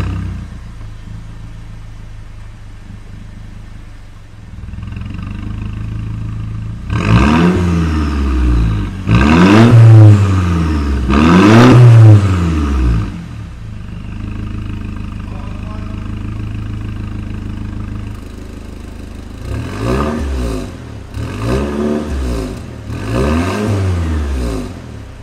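Mercedes-Benz W204 C-Class engine heard through an aftermarket mid and rear exhaust section with electronically controlled valves and four tailpipes, revved while stationary. It idles, the idle grows louder about four seconds in, then it is blipped three times, settles back to idle, and is blipped three more times near the end, each rev rising and falling in pitch.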